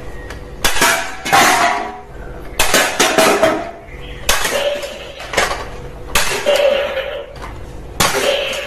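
A string of sharp knocks and crashes of hard objects, about eight at uneven spacing, some with a brief ring after them.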